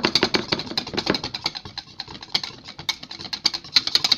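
Wire whisk beating sweetened whipped cream in a glass bowl: a rapid run of light clicks as the wires strike the glass, about eight a second, thinning briefly around the middle before picking up again.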